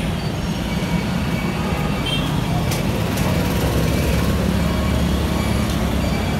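Road traffic: a steady rumble of passing cars and motorbikes.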